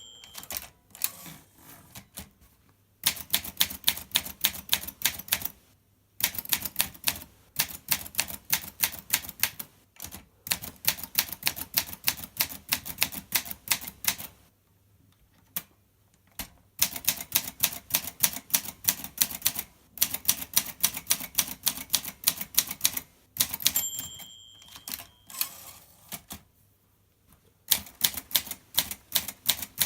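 Olympia SM2 portable manual typewriter being typed on: runs of quick type-bar strikes, several a second, broken by short pauses. A steady ring sounds once about two-thirds of the way through, consistent with the margin bell.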